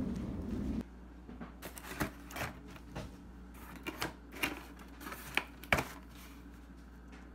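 A low outdoor rumble cuts off less than a second in, then a cardboard Domino's pizza box is handled and opened on a table: scattered sharp clicks, taps and short rustles of cardboard over a faint steady hum.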